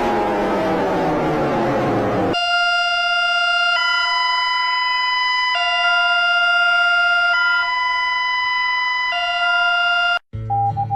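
Electronic emergency-alert alarm tones. A harsh wail falls in pitch and cuts into a steady two-pitch alarm that switches between a low and a high tone about every second and three quarters. Near the end it breaks off abruptly into a different, rapidly pulsing beep.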